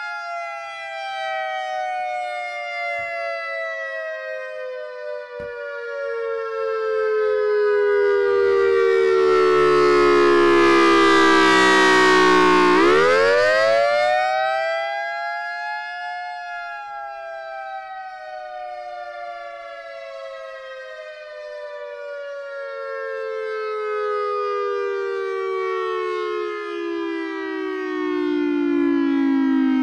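Federal Signal EOWS 612 electronic outdoor warning siren sounding the wail tone. The pitch sinks slowly for about thirteen seconds, climbs back quickly, then sinks again. The loudness swells as the rotating speaker array turns toward the listener, strongest about ten seconds in and again near the end.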